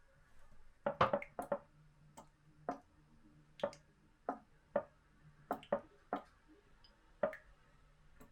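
A series of light, irregular clicks and knocks of small household objects being handled and set down, loudest in a cluster about a second in, over a faint steady hum.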